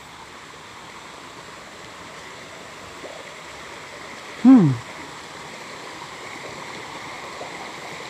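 Small waterfall cascading over rock: a steady rushing of water that grows slowly louder. About halfway through, a person gives one short exclamation that falls in pitch.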